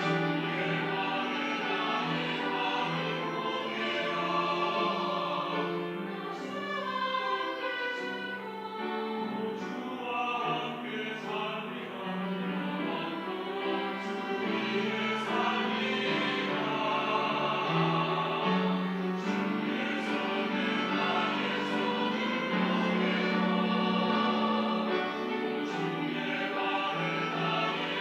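Church choir singing a hymn of praise in long, held notes.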